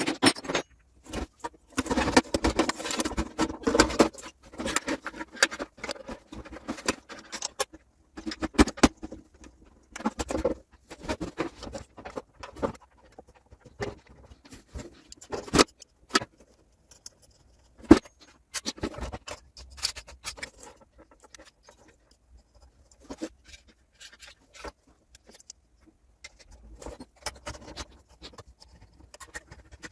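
Small metal parts and tools clinking, knocking and rattling on the work surface as an espresso machine is put back together: irregular clicks and knocks, with a denser clatter in the first few seconds.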